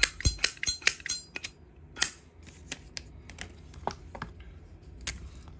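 Metal Zippo lighters being handled: a quick run of sharp metallic clicks and clinks in the first second and a half, then scattered single clicks.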